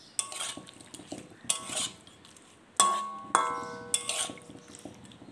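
A metal utensil stirring prawns and spice paste in a metal kadai, knocking against the pan in about five sharp, ringing clinks; the loudest two come close together about three seconds in.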